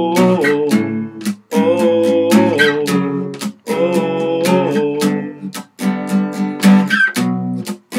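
Song with strummed acoustic guitar chords and a singer holding long, wavering notes, breaking off briefly between phrases about every two seconds.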